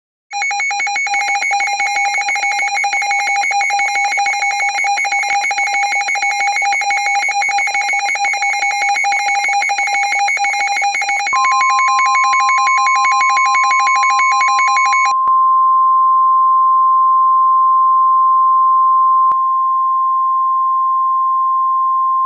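Emergency Alert System attention signal: a harsh, rapidly pulsing two-tone alarm that cuts off after about 15 seconds. About 11 seconds in, a steady single-pitch NOAA Weather Radio warning alarm tone joins it and carries on alone after the two-tone alarm stops.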